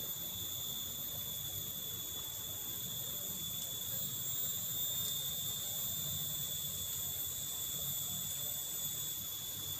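Insects droning steadily in a high, thin continuous tone over a low, even background rumble.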